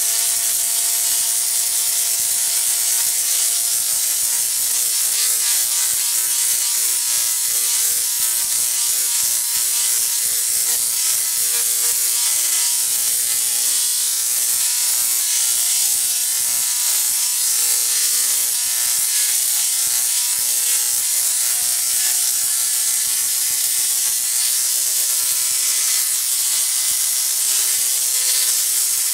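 Rotary spark-gap Tesla coil running steadily: a loud, continuous buzzing crackle of sparks arcing between its two stacked toroids and out into the air.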